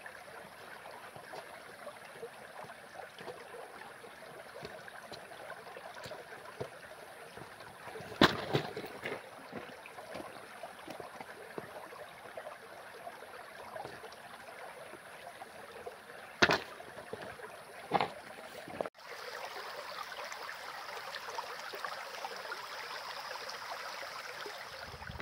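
Creek water flowing steadily, with three sharp knocks in the first part. About three quarters of the way through, the sound changes abruptly to a similar steady rush with a high, thin hiss added.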